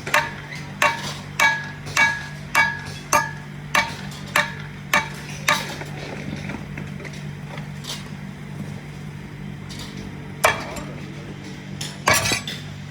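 Hammer striking the metal of a heavy electric motor being taken apart: about ten ringing blows, roughly a blow every 0.6 s, then a pause and two more single blows near the end.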